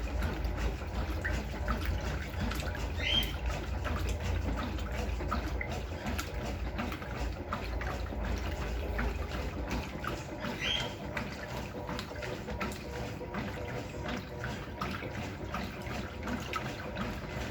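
Water trickling and splashing inside a Brastemp Clean 6 kg top-loading washing machine, with many small drips. A low hum underneath stops about ten seconds in.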